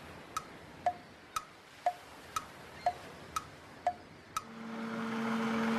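Clock-style ticking, a tick and a lower tock about twice a second, set to a kitchen-timer graphic. About four and a half seconds in, an electric blender motor starts running with a steady hum that grows louder.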